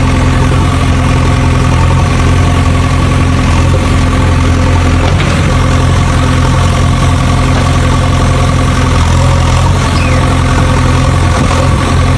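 Steady engine idling sound, unchanging in pitch, like a tractor or excavator engine ticking over.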